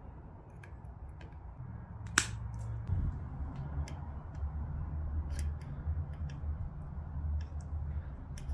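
Handling clicks from working on a mountain bike's dropper lever with a small tool: one sharp click about two seconds in and scattered light ticks over a low rumble.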